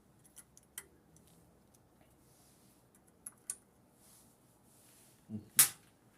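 Small clicks and taps of screws and metal motor parts being handled while the carbon brush holders are fastened, with a louder double knock about five and a half seconds in.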